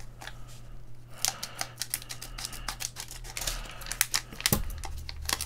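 Trading card packaging being handled and opened by hand: a quick, irregular run of sharp clicks and crinkles, over a faint low hum.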